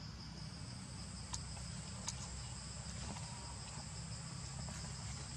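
Steady high-pitched drone of insects in the forest, two constant tones held without a break, over a low steady rumble, with a few faint ticks.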